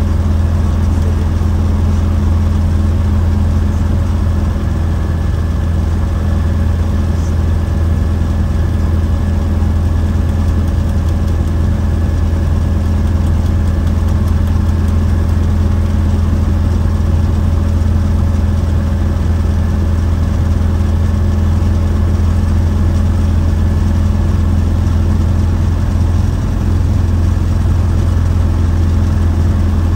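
Light aircraft's piston engine and propeller running steadily with an even drone, heard from inside the cockpit.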